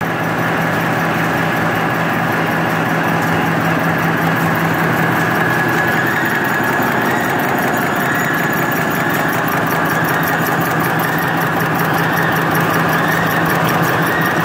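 Automatic napkin folding and packaging machine running: a steady, loud mechanical hum with a fast, even clatter of its moving parts.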